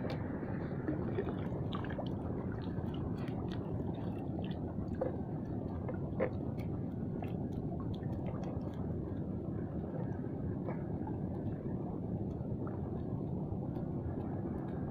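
Steady low rumbling noise, with scattered light clicks and rustles from hands handling fishing line and a mesh keep net; one slightly louder tick about six seconds in.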